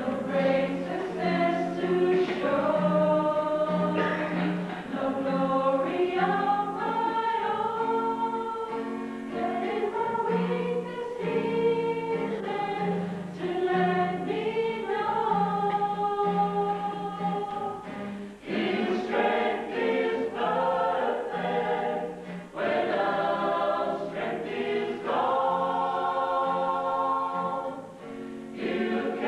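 Mixed choir of men and women singing a gospel song in several parts, with a low bass note repeating steadily underneath.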